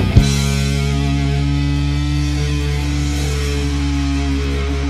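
Heavy rock band's distorted electric guitars and bass holding a sustained chord that rings out, after one last full-band hit right at the start; no drumming after that hit.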